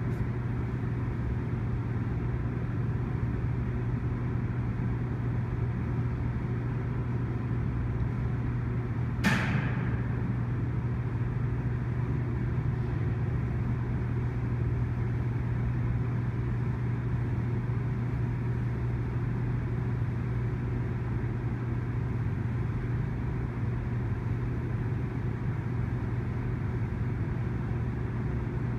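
Freight train of autorack cars rolling past at a distance: a steady rumble of wheels on rail, with one sharp bang about nine seconds in.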